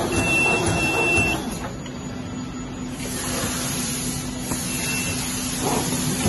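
Plastic glove making machine, a bottom-seal bag making machine with a heat-sealing and cutting head, running at production speed: a dense, steady mechanical noise with a low hum.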